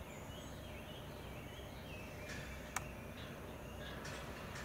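Faint outdoor ambience with distant birds chirping on and off, and one sharp click a little under three seconds in.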